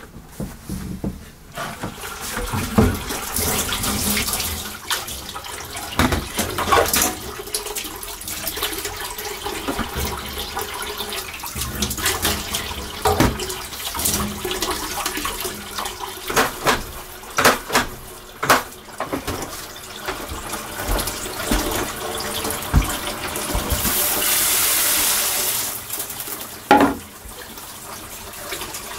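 Tap water running into a stainless steel sink while dishes are washed, with dishes and bowls knocking and clattering against each other and the sink. Near the end the water runs harder for a couple of seconds, then a sharp clack.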